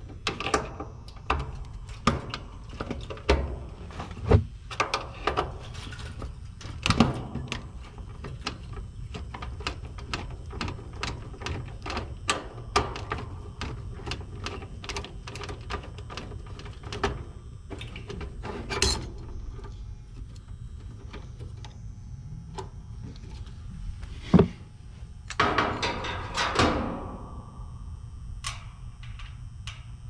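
Irregular clicks, taps and knocks of a screwdriver and metal parts on an air-conditioning condenser's sheet-metal control panel as a replacement capacitor is fastened and wired in, over a low steady hum. A denser burst of scraping and rattling comes near the end.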